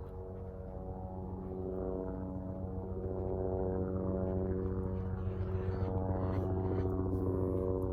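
A steady engine drone with a low hum and a stack of even tones, slowly growing louder.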